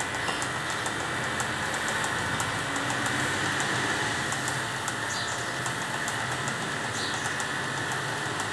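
Corded electric hair clippers buzzing steadily as they shave through a St. Bernard's thick coat.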